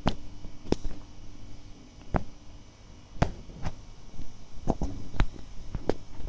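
Sharp, irregular knocks and clicks, about nine in six seconds, over a faint steady hum.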